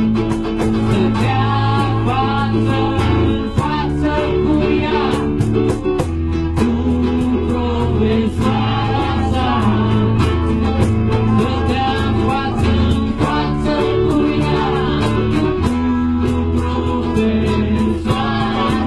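Live music: acoustic guitar and keyboard piano playing under a singing voice.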